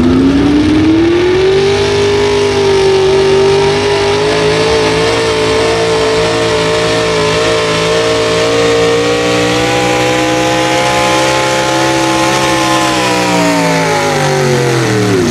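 Pulling pickup's engine at full throttle, hauling a weight-transfer sled down a dirt track. The revs climb in the first two seconds, hold high with a slow rise, then fall steeply near the end as the throttle comes off at the end of the pull.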